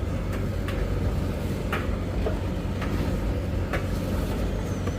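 Tumble dryer running with a steady low hum, and a few light knocks as towels and dishcloths are loaded into a front-loading washing machine.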